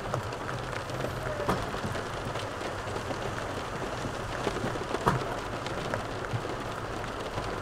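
Steady background noise with a low hum inside a parked car's cabin. It is broken by a few faint clicks of a spoon against a plastic takeaway container.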